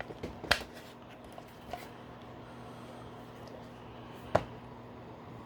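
Hard plastic toy parts clicking and tapping as a small plastic chin gun is handled and fitted onto a G.I. Joe BUGG vehicle: a few sharp clicks, the loudest about four seconds in, over a low steady hum.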